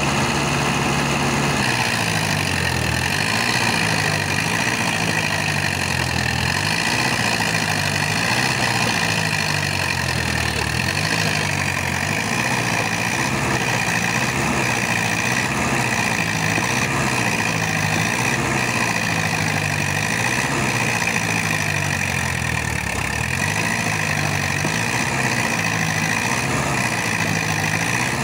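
Two diesel tractor engines, a Sonalika DI 60 and a Swaraj 855, running steadily under load as they strain against each other on a chain. Their low engine notes waver slowly and regularly up and down against each other.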